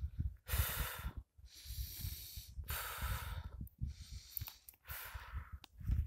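A man breathing hard and fast close to the microphone: about five noisy breaths in and out, over a low rumble on the microphone. This is the laboured breathing of someone short of oxygen at high altitude.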